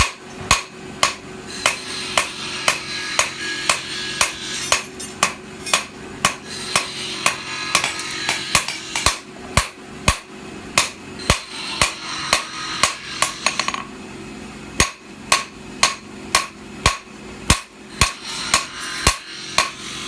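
Blacksmith's hammer striking the steel of a sword blade on an anvil in a steady rhythm, about two blows a second, with a brief pause about three-quarters of the way through before the hammering resumes.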